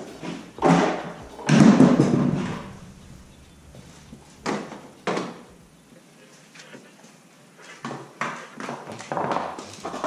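Plastic body panels and seat of a GY6 scooter being handled and lifted off: a series of separate knocks and clunks, the heaviest about a second and a half in, with lighter ones around five seconds and again near the end.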